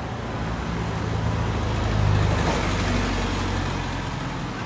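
A motor vehicle, here a van, drives past close by: engine hum and tyre noise swell to a peak about two seconds in and then fade, over the steady noise of street traffic.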